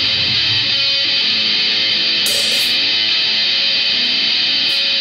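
Loud rock music led by electric guitar, dense and steady throughout, with a few short high splashes about two seconds in and near the end.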